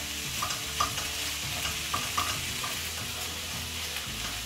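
Chopped red onion and spring onions sizzling in a non-stick frying pan, stirred with a silicone spatula that gives irregular light scrapes and taps against the pan.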